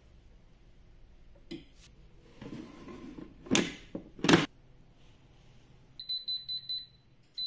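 Ultenic K10 air fryer's basket drawer slid in and shut with two loud clunks, the second the loudest. A couple of seconds later its touchscreen panel gives a quick run of short high beeps as the timer is set.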